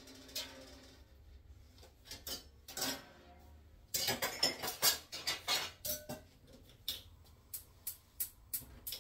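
Kitchen clatter of metal pots and utensils being handled: a short ringing tail at the start, a busy stretch of clattering about halfway through, then a run of separate sharp clicks near the end.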